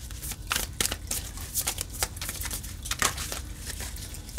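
Tarot cards being handled: irregular crisp snaps and rustles of card stock.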